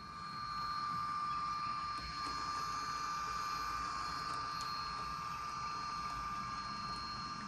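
HO scale model SD45 diesel passing close, its Tsunami2 sound decoder playing diesel engine sound through the small onboard speaker, over the rumble and faint clicking of metal wheels on the track. It grows louder in the first second as the train comes near, then holds steady.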